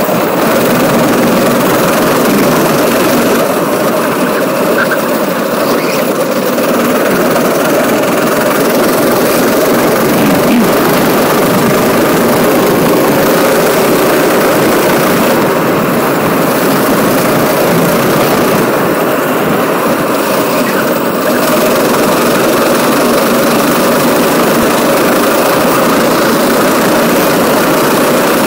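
Go-kart engine running steadily under load, heard on board the moving kart along with wind and rumble on the microphone; the hiss at the top thins briefly a few times.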